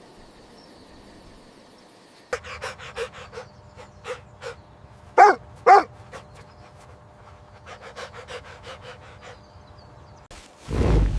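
A dog panting quickly, about three breaths a second, with two short high yips about halfway through. Near the end a loud, deep roar begins.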